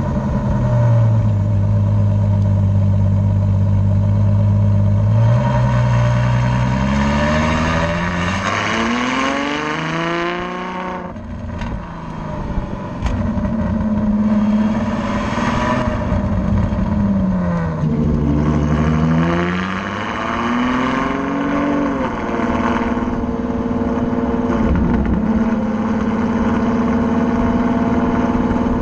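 Ferrari FF's 6.3-litre V12 heard at the tailpipes through a Tubi Style valved exhaust while driving. It holds a steady note, then climbs in pitch under acceleration, drops back about eleven seconds in, rises and falls again, and settles into a steady cruise near the end.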